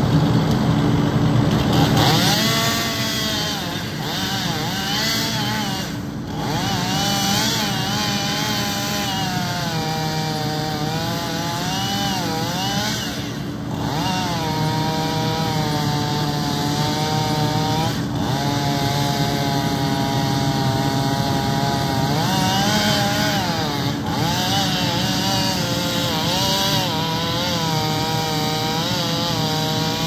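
Chainsaw cutting through a large log, starting about two seconds in. Its engine pitch sags and climbs again and again as the chain bogs in the wood and frees, with brief let-offs a few times. A heavy engine runs steadily underneath.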